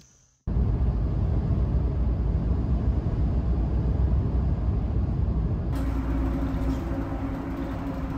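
Steady low rumble of a vehicle in motion, heard from inside, starting suddenly about half a second in; a steady low hum joins it about six seconds in.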